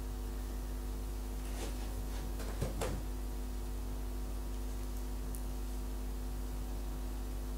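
Steady low electrical hum, with a few faint clicks about two to three seconds in as fingers handle a pearl bead and beading needle on thread.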